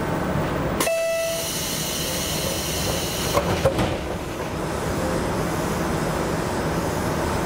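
KiHa 66 diesel railcar's double-leaf side door opening: a sharp release with a short steady tone about a second in, then a few knocks about three seconds later as the leaves reach their open stops. A steady rumble from the idling train runs underneath.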